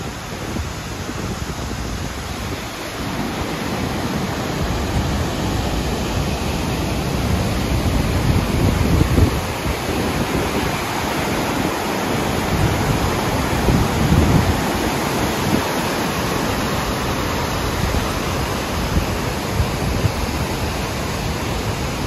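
Steady rushing outdoor noise, with gusts of wind buffeting the microphone and making low rumbles that swell and fade.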